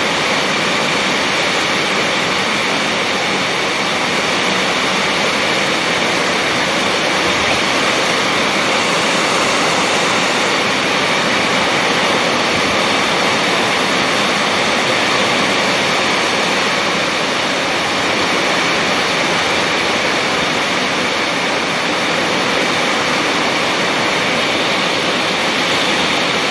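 Heavy rain pouring steadily, a dense, even hiss that holds unchanged throughout.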